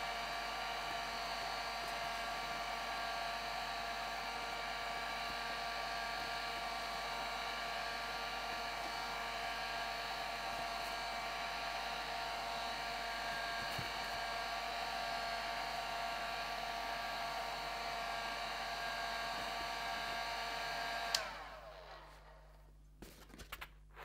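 Heat gun blowing steadily, a fan whine of several even tones over a rush of air. About 21 seconds in it is switched off and the whine falls away as the motor winds down, followed by a few faint clicks.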